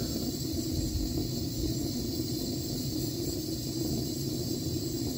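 Steady blowing hiss with a low hum from a heat tool shrinking heat-shrink tubing over a crimped wire splice.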